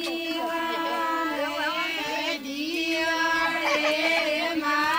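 Several women singing a traditional wedding song together, their voices overlapping over one long held note.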